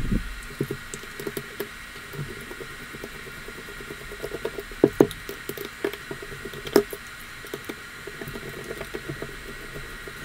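Scattered small clicks and taps of a screwdriver and fingers working the four screws out of a VX18 nitro engine's pull-start backplate, over a steady faint hiss; the sharpest clicks come around the middle.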